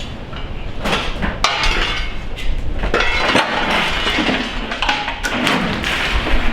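A run of sharp clattering knocks and clinks of hard objects striking each other, with rough scraping noise between them.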